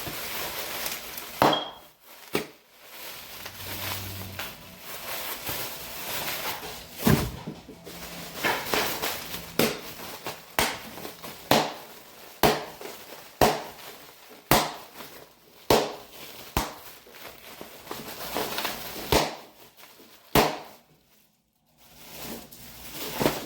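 Pop snappers (bang snaps) going off: about a dozen sharp cracks, many of them roughly a second apart, with faint rustling between them.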